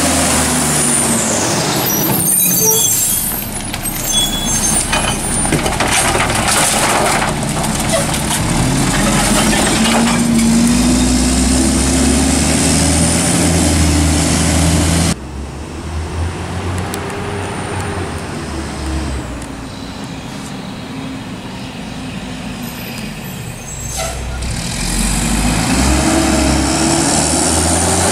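Mack MR garbage truck's diesel engine and air brakes: a hiss of air with clicks, then the engine revving up with rising pitch as the truck pulls away. After a sudden cut, the truck runs more quietly at a distance, and its engine revs up again near the end.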